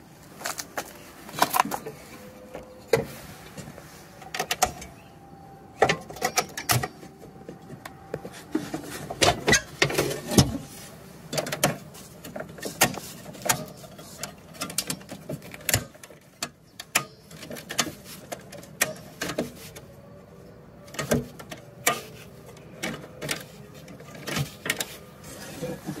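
Irregular sharp knocks and clicks, sometimes several in quick succession, from handling and bumping objects close to a handheld phone.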